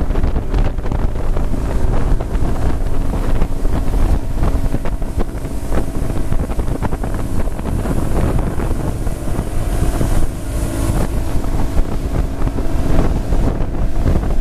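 Mercury outboard motor running steadily at towing speed, with heavy wind noise on the microphone.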